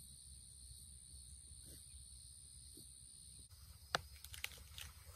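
Faint, steady high insect buzz from the field that cuts off abruptly about three and a half seconds in. A few sharp clicks and rustles follow, the loudest just after the cut.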